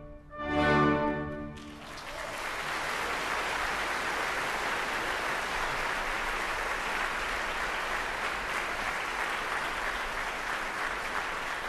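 An orchestra's closing chord, cut off about a second and a half in, then an audience applauding steadily.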